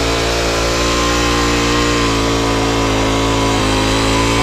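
ActSafe petrol-powered rope ascender's small engine running steadily under load, hauling the climber up the rope.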